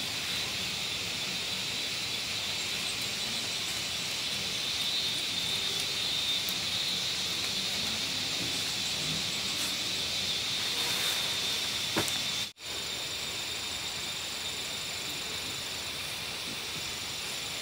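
Insects chirping in a steady, high continuous chorus, with a click and a brief dropout to silence about twelve seconds in.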